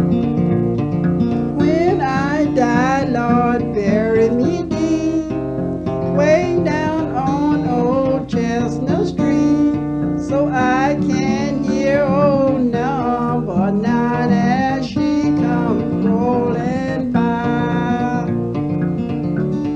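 Guitar music: strummed acoustic guitar with a bending, wavering lead melody over it.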